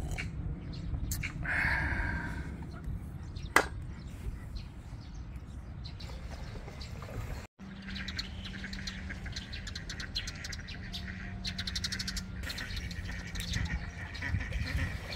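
Small birds chirping over a steady low outdoor rumble, with a single sharp click about three and a half seconds in. After a brief break about halfway, a faint steady hum joins the chirps.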